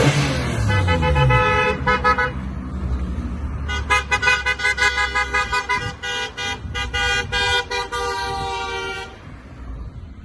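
Car horns honking as convertibles drive past: an engine passing by at the start, then a run of short horn toots, and from about four seconds in a longer string of rapid on-and-off horn blasts that stops about a second before the end.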